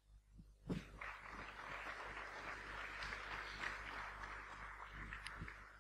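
Faint audience applause, starting about a second in and dying away just before the end.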